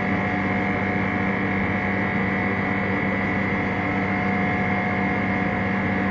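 Steady machine hum with a few constant tones, unchanging throughout.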